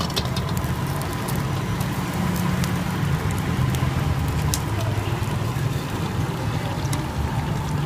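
Charcoal grill crackling with scattered sharp clicks as chicken pieces are turned with metal tongs on the wire rack. Under it runs a steady, louder low hum.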